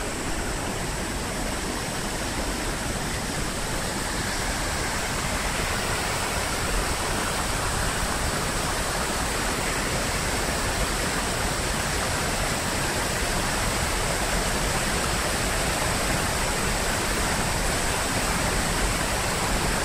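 Muddy floodwater rushing over a drop in a wide, steady cascade, a constant rush of water noise that grows a little louder a few seconds in.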